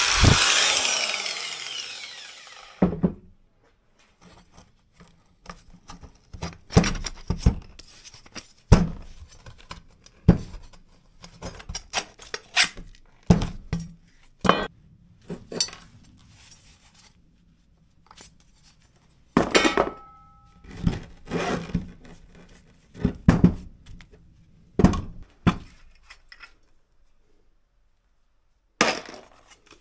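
Metal motor and pump parts being handled and set down on a wooden workbench: scattered knocks, clinks and scrapes at irregular intervals, one with a brief metallic ring. Music fades out at the start.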